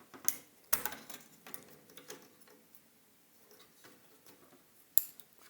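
A few separate light clicks and knocks from the AKAI EWI 4000s's long circuit board and plastic shell parts as the board is worked loose and lifted out. The loudest click comes just under a second in and a sharp one near the end.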